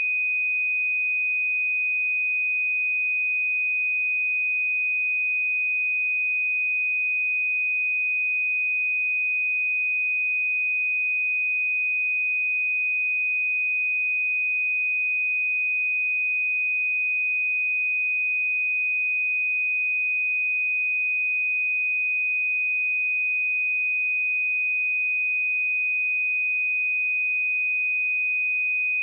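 A steady 2496 Hz pure sine-wave test tone: one unchanging high-pitched tone at constant loudness.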